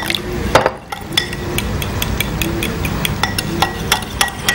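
Metal spoon stirring thin yogurt in a glass bowl, clinking against the glass several times a second.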